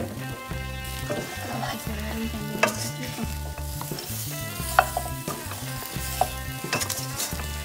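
Pork pieces, potatoes and carrots sizzling in hot oil in a stainless steel frying pan while being stirred with a spatula, with sharp clicks of the spatula against the pan about two and a half and five seconds in.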